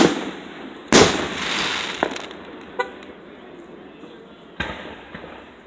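Aerial fireworks shells bursting: a loud bang about a second in, the loudest, trailing off slowly, a smaller crack a second later, and another bang near the end.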